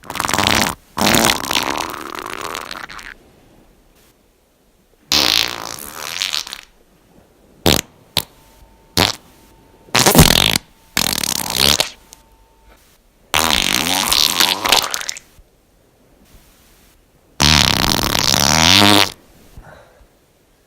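A run of about ten farts, one after another with short silent gaps. Some are long and drawn out with a wavering pitch; others are short pops.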